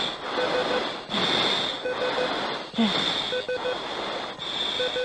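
Jet cockpit recording: a steady rushing noise with a short triple beep repeating about every one and a half seconds, alternating with a brief hiss.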